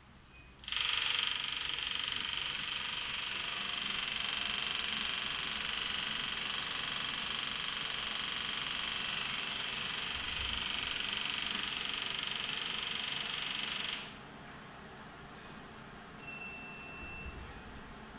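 HIEMT electromagnetic body-sculpting machine running: a loud, steady hiss starts about a second in and cuts off suddenly about fourteen seconds in. Near the end there are a short beep and faint ticks.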